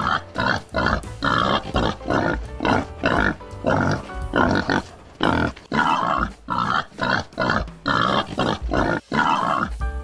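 Boars grunting in a rapid, continuous run of short grunts, about two or three a second, over background music.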